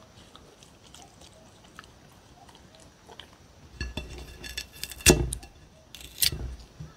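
A dog crunching on cucumber, with a run of sharp clicks and knocks on a ceramic plate about four to six seconds in as cucumber pieces are picked up.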